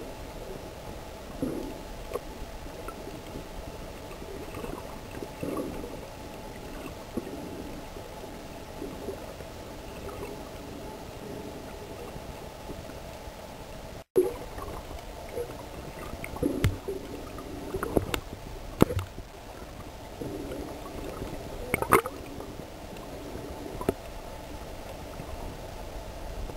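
Water gurgling and sloshing heard through an underwater camera's housing, over a steady hiss, with scattered short clicks and knocks that come more often in the second half. There is a brief break in the sound about halfway.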